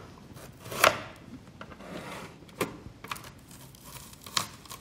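Plastic clicks and knocks from an Alligator onion peeler being worked by hand on an onion, a sharp knock about a second in and a few more spaced through, with some light rustling between.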